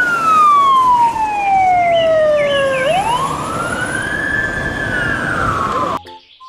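Fire engine siren wailing: a long tone that slides slowly down to a low pitch, then winds back up about three seconds in and slowly falls again. Brief chirps sound over it about two seconds in, and the siren cuts off shortly before the end.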